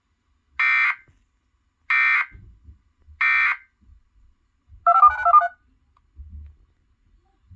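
Emergency Alert System end-of-message signal: three short, identical bursts of screechy digital data tones (the SAME 'NNNN' header) about a second and a half apart, marking the end of the alert. About five seconds in comes a brief burst of warbling electronic tones.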